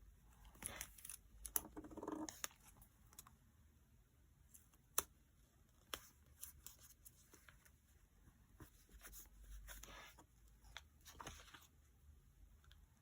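Paper and stickers being handled on a desk: short, light rustles with scattered small taps and clicks, the sharpest about a second and a half in and about five seconds in.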